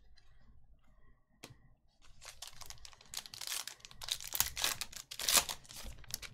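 A foil trading-card pack being torn open, its wrapper crackling and crinkling in a run of tears that starts about two seconds in and is loudest near the end.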